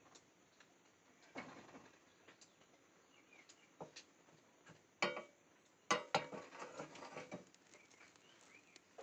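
Small grains crackling and popping in a steel ladle heated over a gas burner: scattered quiet crackles, with the loudest bursts about five and six seconds in. A few faint high chirps are heard among them.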